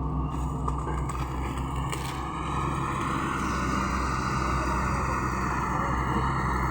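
Diesel engine of an earth-moving machine (JCB-type loader/excavator) running steadily under work, with a few light clicks in the first two seconds; its noise grows louder from about two and a half seconds in.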